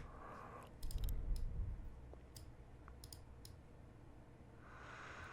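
Computer mouse clicking at a desk: scattered single clicks, with a quick cluster and a dull low knock about a second in.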